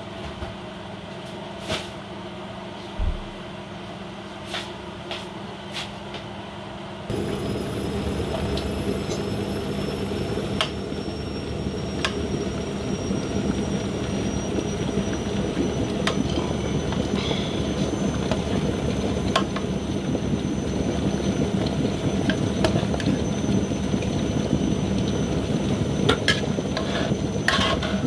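Cooking sounds at a stove: a few light knocks and clinks of pots and lids. About seven seconds in, a loud steady rushing noise begins suddenly and carries on, with a faint high whine that rises slowly.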